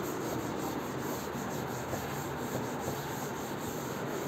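Chalk being wiped off a green chalkboard with a board duster: a steady, dry rubbing of the pad across the board.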